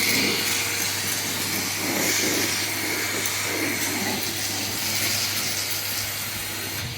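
Red Henry canister vacuum cleaner running steadily, a continuous motor hum and airflow hiss.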